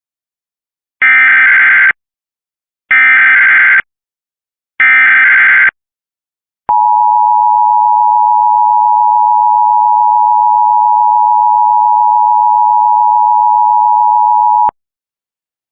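Emergency Alert System test: three short bursts of screeching SAME digital header data, each about a second long, then the EAS two-tone attention signal held steady for about eight seconds before cutting off sharply.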